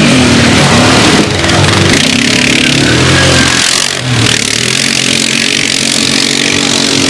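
Quad bike (ATV) engine running loud and close, its pitch rising and falling as the throttle is worked, with a brief drop about four seconds in.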